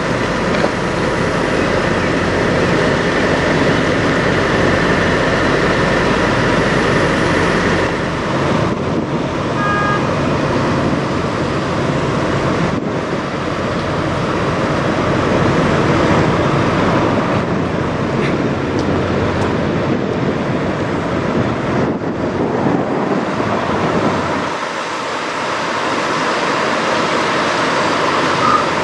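Semi-truck diesel engines running, heard as a loud, steady din with no distinct engine beat. The sound changes abruptly about nine seconds in, and the deep rumble drops away about three quarters of the way through.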